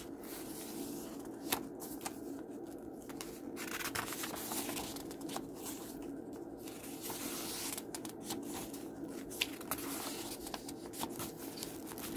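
Paper pages of a handmade junk journal being flipped through by hand: continuous rustling and flapping of paper, with a couple of sharp page snaps, over a steady low hum.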